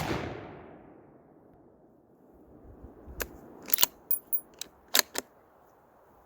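The report of a Thompson Center Compass II Compact .223 bolt-action rifle dies away over the first second after a shot. About three seconds in comes a quick run of sharp metallic clicks as the bolt is worked to eject the spent case and chamber the next round.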